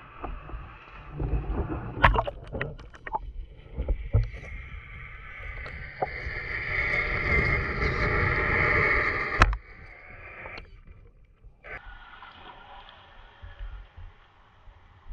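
Battery-electric RC crawler truck wading through a shallow rocky river: water splashing and sloshing around it with irregular knocks. For a few seconds the microphone is under water and the sound turns to a louder muffled rushing and gurgling, which cuts off suddenly about nine and a half seconds in, leaving a quieter steady rush of water.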